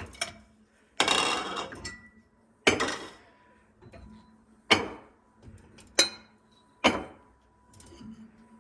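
Plates and dishes clattering and clinking as they are lifted out of a dishwasher's bottom rack and set down: a longer rattle about a second in, then several separate sharp clinks a second or two apart.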